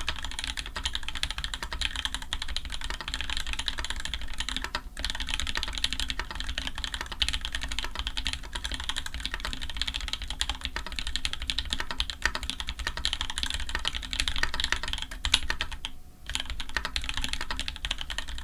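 Continuous typing on a custom mechanical keyboard: an Orion v2.5 with an aluminium plate, lubed Tangerine linear switches with TX films, GMK keycaps and Gon stabilizers, giving a dense stream of key clacks. There are two brief pauses, about five seconds in and about sixteen seconds in.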